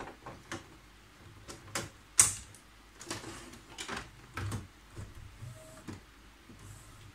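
Plastic clicks and knocks of an ink cartridge being snapped into an HP DeskJet 3070A inkjet printer's carriage and the printer's lid being shut, the loudest a sharp clack about two seconds in. Quieter clicking and a low hum follow from the printer's mechanism as it checks the newly seated cartridges.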